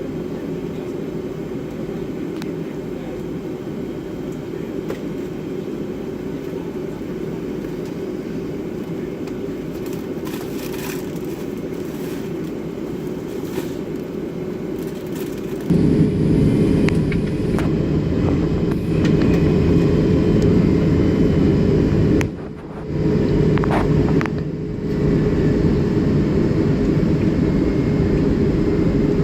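Cabin noise inside a Boeing 757-300: a steady low rumble of the jet's engines and airframe. It grows abruptly louder a little past halfway, then dips briefly twice.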